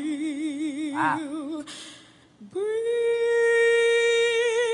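A woman singing unaccompanied in a strong, soulful voice. She holds the word "feel" with a wide vibrato and takes a quick breath. About halfway through she starts a long, higher held note that swells into vibrato.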